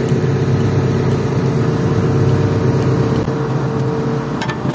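Excavator's diesel engine running steadily at idle, with a few light clicks near the end.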